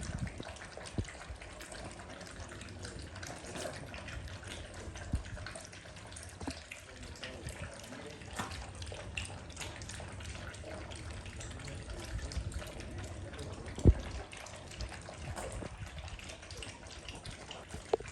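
Several puppies lapping and slurping milk from a bowl: a steady run of small, wet, irregular smacks, with one sharp knock about fourteen seconds in.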